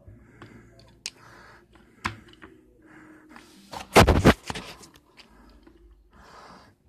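Handling noise from a wooden toy engine held close to the microphone: a few sharp clicks and knocks, then a short, loud burst of scraping and rattling about four seconds in as the toy comes right up to the camera.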